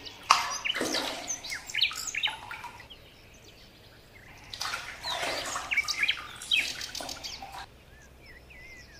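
Songbirds chirping and calling in two bursts of quick, rising and falling notes, with a short lull between them.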